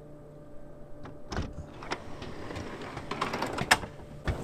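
Aluminium roof hatch being unlatched and pushed open from below: a run of clicks and metallic clanks, the loudest a sharp clank about three and a half seconds in, then a dull thump.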